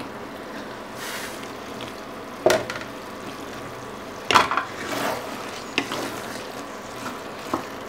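Thick chickpea curry bubbling and sizzling in a pan with a steady low hiss as the glass lid comes off. A couple of sharp knocks follow, then a wooden spatula scraping and stirring through it in the pan, from about four seconds in.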